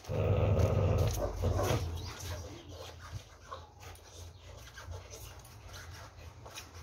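Pit bull growling as it grips and tugs a hanging tyre on a spring pole. The growl is loud for about the first two seconds, then drops lower, with scattered clicks and knocks from the tyre rig.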